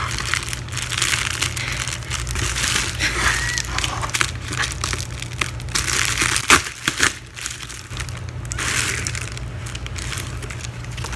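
Plastic shrink wrap being crinkled and peeled off a boxed album, with a few sharp snaps and clicks about six and a half seconds in. A steady low hum runs underneath.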